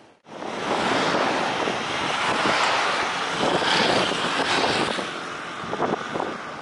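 Jet airliner passing low overhead on its landing approach: a loud rushing roar that swells in about a second in, holds for several seconds with a higher whine near the middle, then eases off.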